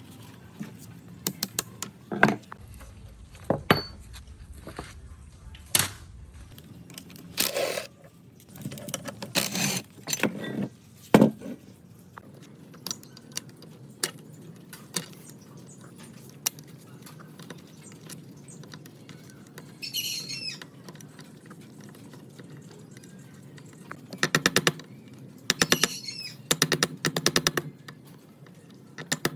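Scattered knocks and clicks of tools and parts being handled at a workbench, with a brief high chirp about twenty seconds in and bursts of rapid tapping near the end.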